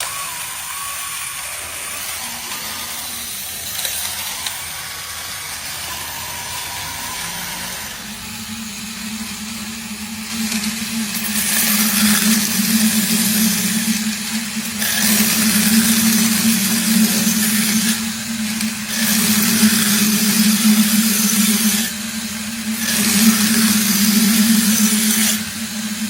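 Electric drill running with a steady hum while a knife blade is ground against the spinning sharpener it drives. There are four passes, each a loud grinding hiss of about three seconds with short breaks between.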